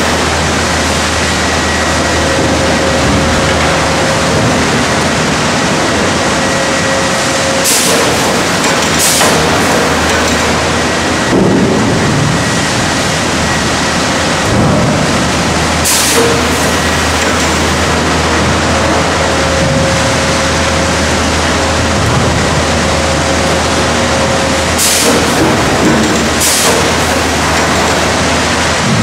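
Sawmill log-handling conveyor running: a loud, steady mechanical din of chains and rollers under a low hum, with a thin whine coming and going. Sharp knocks now and then as logs shift or strike the steel frame.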